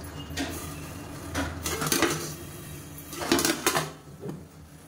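Stainless steel idli stand knocking and clanking against the steamer pot as it is lifted out after steaming. There are several separate metal clanks, the loudest two near the end.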